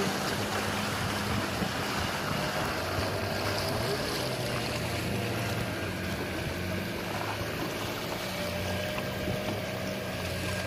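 Outboard motors of wooden river longboats running steadily under way, their hum wavering slightly, with water rushing along the hulls.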